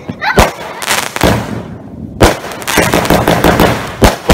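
Fireworks going off: a handful of sharp bangs as shots launch and burst, with a stretch of fast crackling in the middle.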